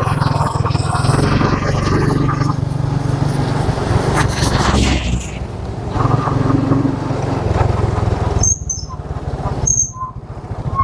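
Motorcycle engine running while riding, with wind and road noise. About eight and a half seconds in it drops away much quieter, and a few short high chirps are heard.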